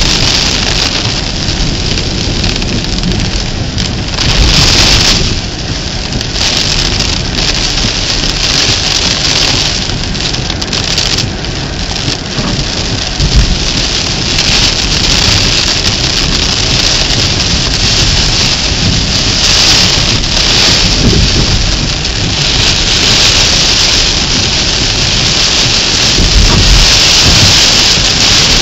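Heavy rain pouring down during a thunderstorm, a loud steady hiss that swells and eases.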